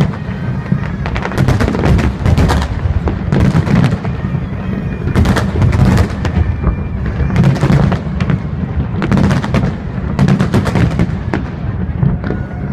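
Aerial fireworks shells bursting in a dense, irregular barrage of sharp bangs, roughly every half second to second, over a continuous low rumble of overlapping detonations.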